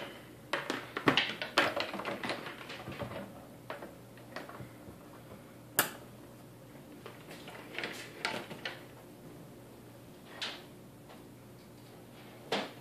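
Scattered clicks and knocks of a cable being plugged into a Cisco AP541N wireless access point and the unit handled on a wooden table, with one sharp click about six seconds in.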